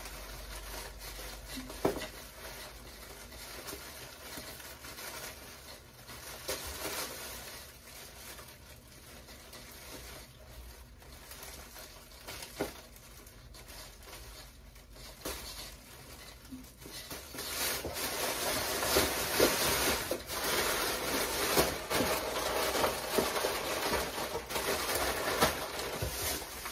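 Plastic bags crinkling and rustling, with small knocks, as items are pressed and arranged in a cardboard box. It gets louder and busier about two-thirds of the way in.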